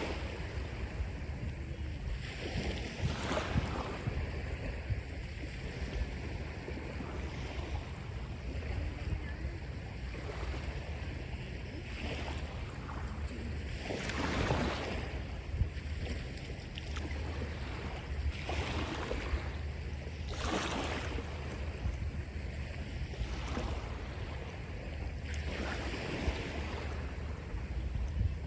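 Small sea waves breaking and washing up a beach, with louder surges swelling and fading every few seconds. A steady low wind rumble sits on the microphone underneath.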